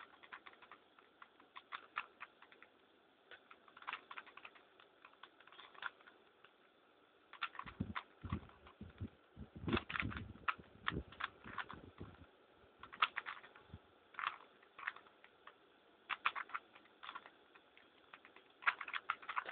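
A 3x3 Rubik's cube with its centre caps removed being turned by hand: plastic layers clicking and clacking in short bursts with pauses, and a few duller knocks near the middle, as the parity-fix sequence is worked through.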